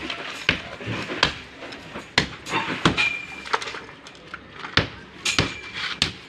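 Hammer striking a plastered masonry wall to break it apart: about eight sharp blows at an irregular pace, a few with a short metallic ring, and a pause of about a second near the middle.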